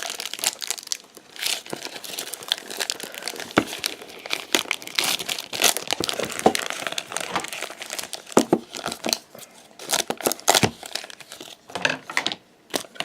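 Packaging of a trading-card collector's box being handled and unwrapped: plastic wrap crinkling in dense, irregular crackles and rustles, with a short lull near the end.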